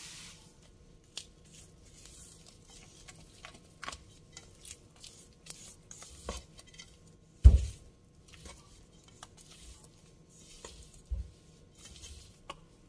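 Cake batter being stirred in a metal mixing bowl, the utensil giving scattered clicks and knocks against the bowl, with one louder thump about halfway through.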